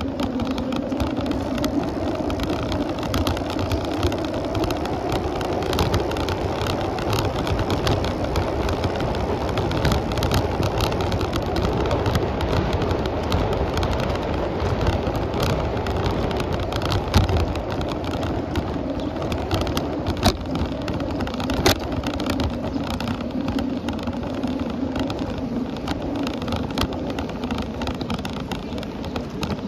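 Steady ride noise from a moving bicycle: wind on the microphone and tyres rolling on paved road. A few sharp knocks come about two-thirds of the way through.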